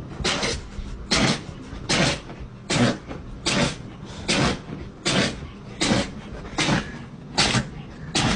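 A pet sneezing over and over in a rapid, steady run: about eleven sharp sneezes, each a bit under a second apart.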